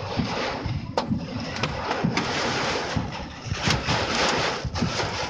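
Heavy rain and gusting storm wind lashing a car, heard from inside the cabin: a steady rushing hiss with uneven low buffeting and a few sharp ticks.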